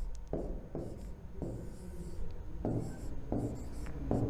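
Stylus strokes on an interactive smart board: a run of short, separate rubbing strokes as letters are written and circled.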